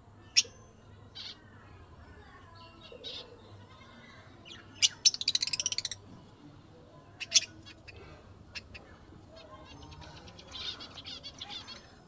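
Small pet birds in an aviary chirping: scattered sharp single chirps, with a fast chattering run of repeated chirps about five seconds in and more chirping near the end.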